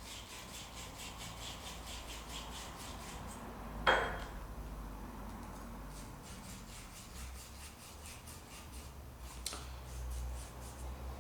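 Copper pipe ends being scoured clean by hand, a rhythmic rubbing at about four strokes a second, preparing the copper so the solder will run. A single sharp knock sounds about four seconds in.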